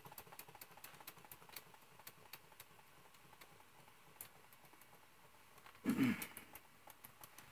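One of a pair of Jensen #35 toy steam engines just starting to run as its boiler comes up to pressure: a faint, quick, irregular ticking and clicking.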